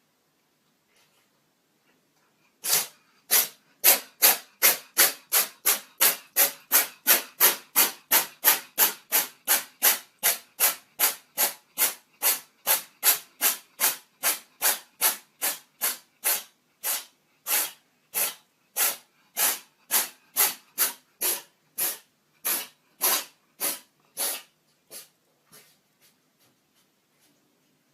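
An animal sneezing over and over: a long run of short, sharp breathy bursts, about two a second, that slows a little and fades out near the end.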